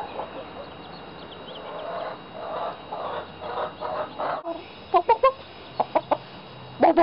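Chickens clucking: soft, low, repeated clucks at first, then after a brief break a run of louder, short, sharp clucks near the end.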